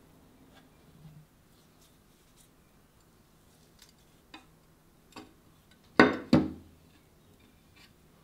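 Scattered faint clicks and rustles of hands working crumbled, ground chocolate off a metal meat-grinder plate, then two loud knocks in quick succession about six seconds in, as the metal grinder plate is set down on the tray.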